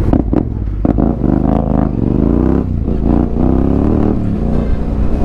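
Motorcycle engine accelerating, its pitch climbing in a few rising sweeps as it pulls through the gears, over a steady low rumble.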